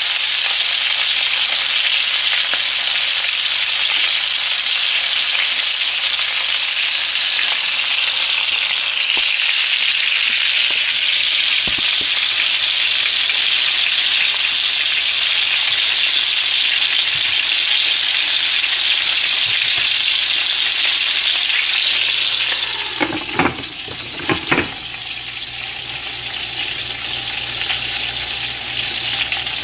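Seasoned chicken pieces frying in hot oil in a skillet, a steady sizzle. A little after twenty seconds a glass lid is set on the pan with a few sharp knocks, and the sizzle dips for a moment before building again under the lid.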